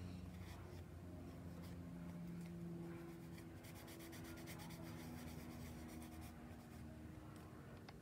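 Faint rustling and rubbing of stiff paper craft tags being handled and slid against one another, with a denser run of quick scratchy strokes about halfway through. A low steady hum sits underneath.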